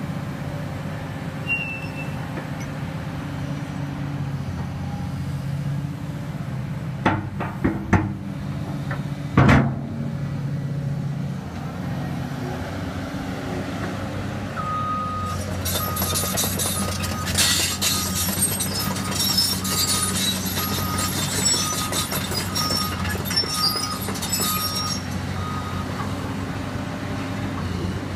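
Caterpillar 320 hydraulic excavator's diesel engine running steadily, with three loud metal clanks about a third of the way in. Then the machine travels on its steel tracks: a travel alarm beeps about once a second over the rattle of the tracks for some ten seconds.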